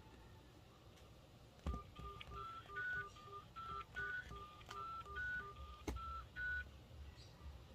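Quiet run of short electronic phone beeps, hopping among a few pitches about three times a second for some five seconds. A sharp click comes just as the beeps begin and another near their end.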